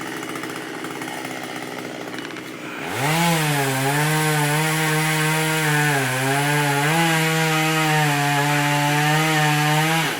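Chainsaw throttled up about three seconds in and running at full speed through wood, its pitch dipping slightly a couple of times as it bites, then letting off just before the end. Before it revs, a lower, steady machine noise.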